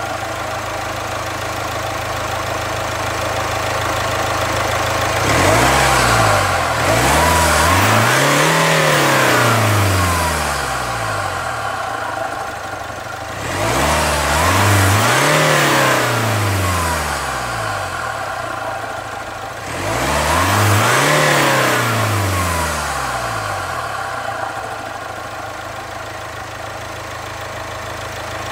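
Jaguar F-Pace's 2.0-litre four-cylinder turbodiesel idling and being revved: a short blip about five seconds in, then three longer revs, each rising in pitch and falling back to idle.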